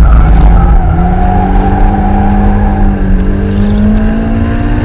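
Toyota Altezza's engine accelerating hard on a race circuit, its note climbing steadily in pitch through a gear from about a second in.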